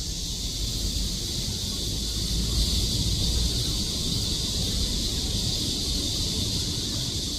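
Chorus of cicadas singing in one steady high buzz without pauses, over a low rumble.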